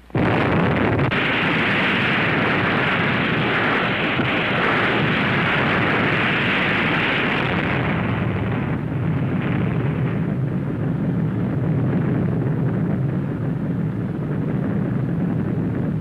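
Blast of an underwater atomic bomb on an old film soundtrack: a sudden start right after the firing signal, then a long, steady rush of loud noise that eases a little after about eight seconds.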